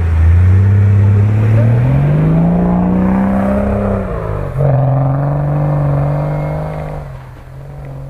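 Nissan Patrol SUV engine revving hard as it drives past and climbs a snowy track. The pitch rises steadily for about four seconds and drops sharply around the middle, like a lift-off or gear change. It then holds steady and fades after about seven seconds as the vehicle pulls away.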